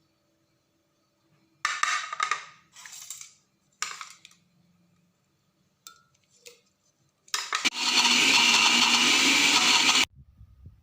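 Electric kitchen blender grinding ingredients: a few short bursts, then running steadily for about three seconds and cutting off abruptly.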